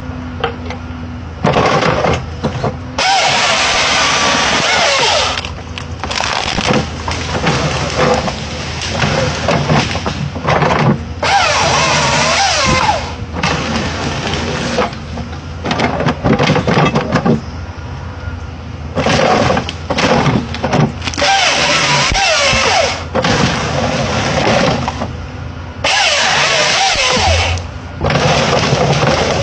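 Chainsaw running in repeated bursts, its pitch rising and falling as it is revved and eased off, with stretches of several seconds at full throttle between quieter idling spells.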